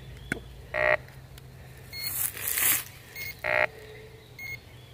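Metal detector giving two short beeps about three seconds apart, with a brief soft rustle between them.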